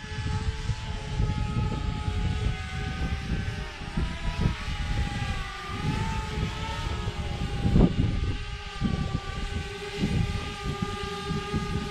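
Quadcopter drone propellers whining as it hovers, their pitch wavering and shifting a little as the motors adjust, with wind rumbling on the microphone.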